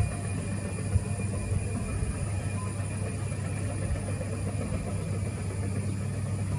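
Boeing 737 jet engines heard from afar at low power as the airliner rolls out on the runway after landing: a steady low rumble with a faint high whine over it.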